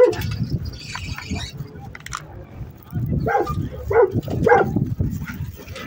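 Dog barking, a few short barks about three to four and a half seconds in.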